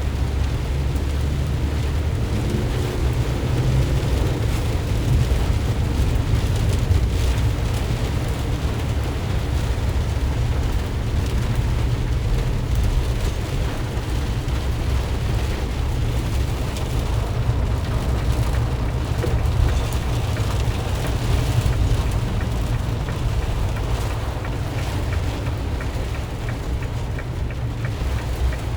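2020 Ram Promaster van driving in heavy rain: a steady low rumble of engine and tyres on a wet road under a continuous hiss of rain and spray.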